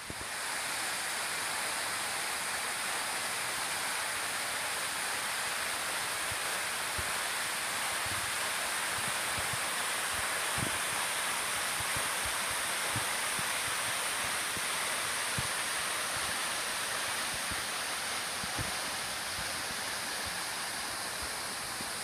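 Norvan Falls, a thin waterfall running low in the summer heat, pouring into its rock pool: a steady hiss of falling water, with a few faint knocks.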